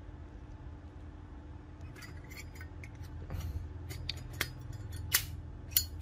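Zippo 200 brushed-chrome lighter handled, its insert slid back into the case. After about two seconds of quiet come a few light metallic clicks and clinks, then two sharper ringing metal clacks near the end.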